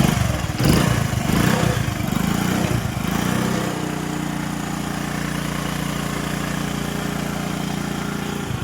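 Honda motorcycle's single-cylinder engine running: rough and uneven for the first three seconds, then held at a steady speed. It is the timing-chain noise that persisted after three chain replacements, which the mechanic traces to a failed oil pump gear and worn tensioner.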